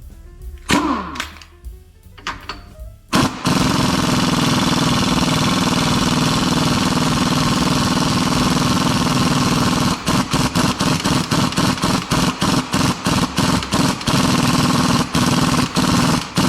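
Impact wrench hammering on a 24 mm nut: a few metallic clicks as the socket goes on, then about six seconds of steady hammering starting about three seconds in, followed by quick short trigger bursts, about four a second, near the end.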